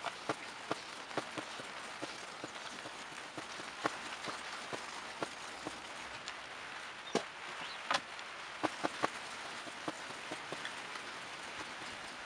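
Rain falling: a steady hiss with irregular sharp taps of drops.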